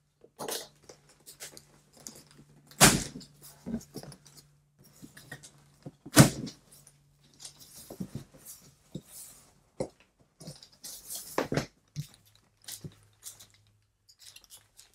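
Cardboard shipping box being opened and handled: irregular scraping, rustling and knocking of cardboard, with two louder thunks about three and six seconds in.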